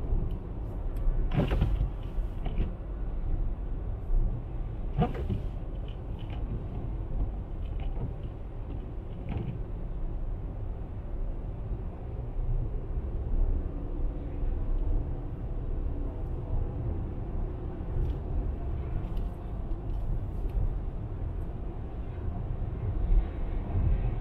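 Steady low rumble of a car's tyres and engine driving on a wet highway, heard from inside the cabin. A few sharp knocks come about a second and a half, five and nine seconds in.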